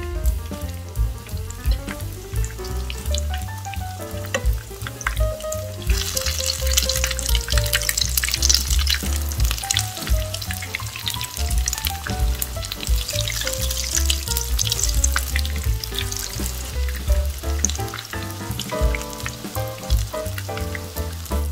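Battered eggplant slices frying in a pan of hot oil, the oil sizzling and crackling, much louder from about six seconds in and easing off near the end. Background music with a steady beat plays under it.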